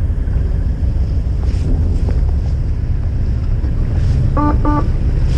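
Fishing boat's engine running steadily as a low rumble, with wind on the microphone. About four and a half seconds in, two short beeps sound in quick succession.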